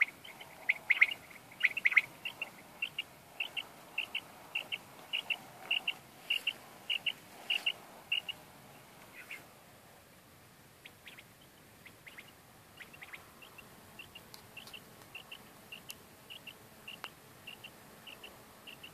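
Hunting dog's beeper collar on an English setter giving short high beeps about twice a second, evenly spaced. The beeps stop for about two seconds in the middle and come back fainter as the dog ranges farther out across the field.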